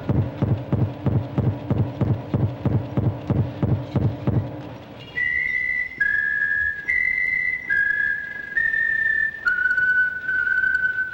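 Stage soundtrack: a low, machine-like pulsing at about three beats a second fades out about four and a half seconds in. It is followed by a run of high whistle tones that step from pitch to pitch, each held about a second, the last held about two seconds.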